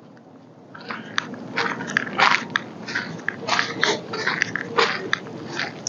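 Footsteps crunching irregularly over dry ground or leaves, starting about a second in.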